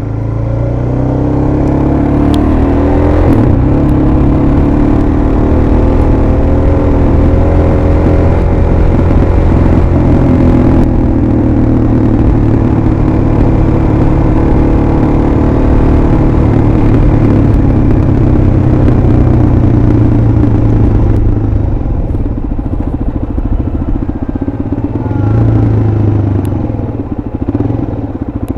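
Suzuki DR-Z400SM supermoto's single-cylinder four-stroke engine under way. It pulls up through the revs in the first few seconds and holds a steady cruise. About two-thirds of the way through it eases off with a choppier note, then picks up again near the end.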